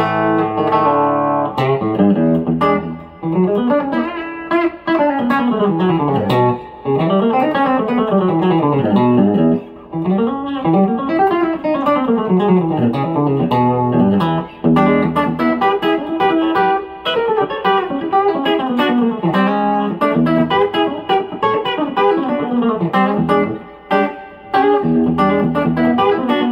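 Fender Telecaster electric guitar playing country chicken-pickin' licks: fast single-note runs that climb and fall in pitch, in phrases with short breaks between them.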